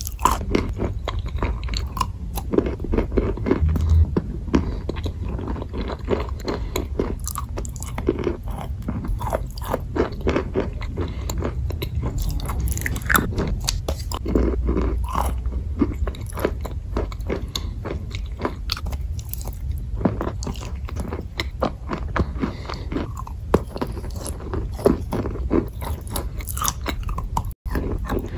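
A chalk bar coated in clay paste being bitten and chewed up close, with many irregular crunches throughout. The sound drops out for a moment near the end.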